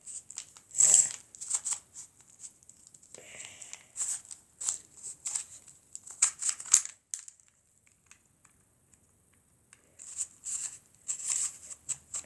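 A 2x2 Rubik's cube being twisted by hand: quick plastic clicks and rasps of the layers turning, in irregular bursts, with a pause of about three seconds a little past the middle.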